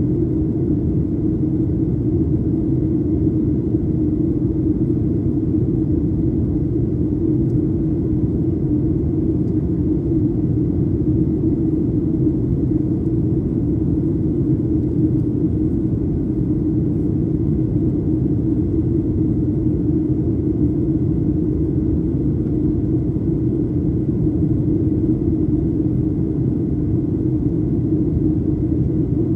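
Steady cabin noise inside a Boeing 737-800 on approach, a constant low rumble from its CFM56-7B engines and the airflow, with a faint steady high tone above it.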